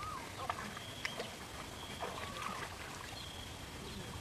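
Water splashing and sloshing as hands scoop and grope through a shallow muddy pond, in scattered irregular strokes. A thin high tone comes and goes in short spells of under a second behind it.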